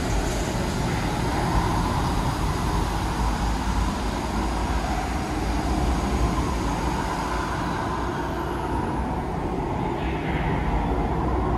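Steady rumble and rushing noise of an indoor water ride moving through a dark exhibit tunnel.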